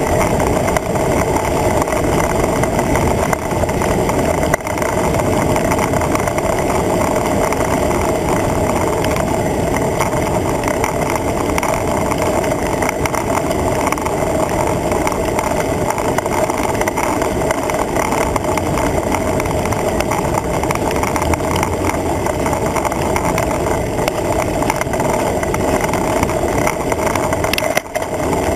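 Steady rush of wind and tyre noise on a bicycle-mounted camera riding at speed, with a brief dip near the end.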